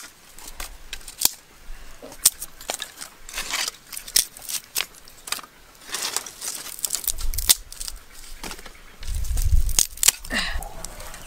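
Dry sticks snapping and cracking as they are broken by hand for kindling, in irregular sharp cracks, with a low rumble about nine seconds in.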